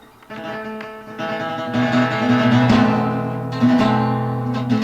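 Acoustic guitar strumming chords that ring on between strokes, in a Spanish, flamenco-like style.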